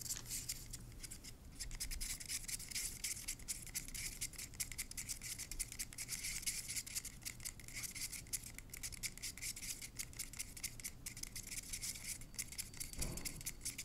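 A stir stick scraping and ticking rapidly round the inside of a paper cup as acrylic paint and Floetrol are stirred together, with a soft low thump near the end.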